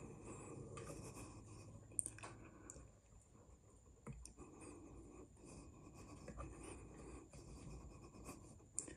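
Faint rubbing and scratching handling noise from a camera mounted on a rifle scope as the rifle is moved, with a sharp click about two seconds in and another near the end.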